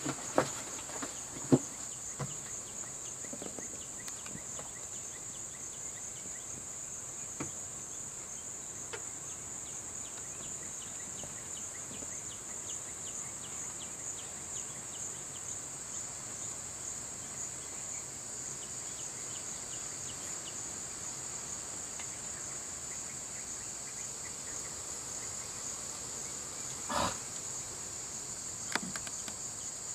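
Steady, high-pitched drone of insects, with a few soft knocks near the start and one brief louder sound near the end.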